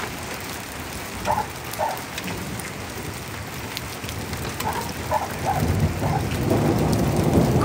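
Heavy rain with big drops falling and hitting surfaces. A low rumble of thunder builds from about two-thirds of the way in and grows louder near the end.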